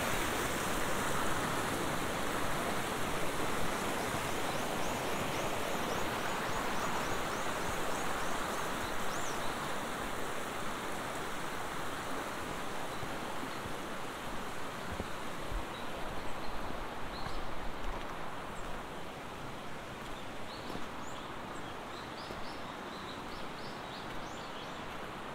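Shallow mountain stream running over rocks, a steady rush of water that slowly fades, with brief high bird chirps.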